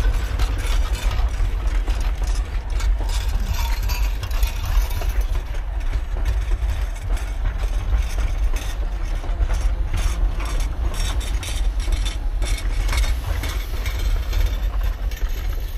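Durango & Silverton Narrow Gauge passenger coaches and caboose rolling past: a steady low rumble with frequent irregular clicks and clanks from the wheels on the rails.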